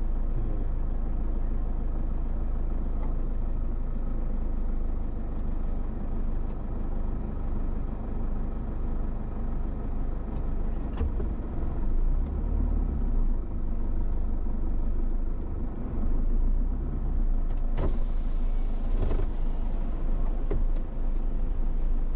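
Car running along the road: a steady engine hum and tyre rumble, with a few light knocks.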